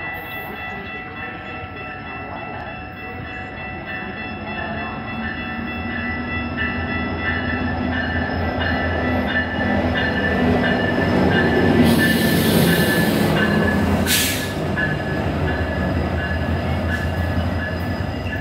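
Metra commuter train passing: its diesel locomotive's low rumble builds and peaks about two-thirds of the way through, then eases off a little. A steady high ringing runs throughout.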